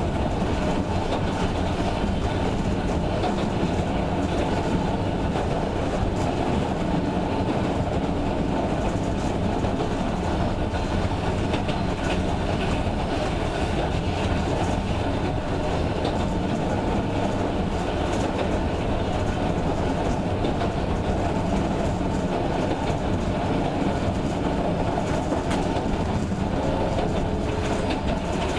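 Sangi Railway Hokusei Line 270-series narrow-gauge electric train running steadily along the track at an even speed.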